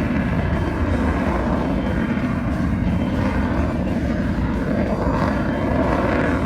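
Jet noise from an F-16 Fighting Falcon's single turbofan engine during a flight demonstration: a loud, steady rumble.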